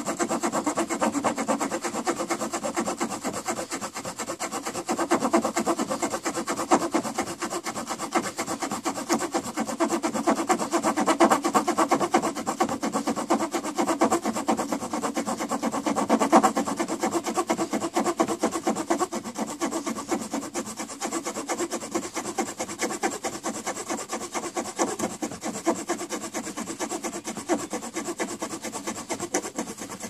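Small folding saw blade of a Victorinox Fieldmaster Swiss Army knife cutting through a wooden 1x6 board in rapid back-and-forth strokes, a steady rasping of teeth in wood without a break.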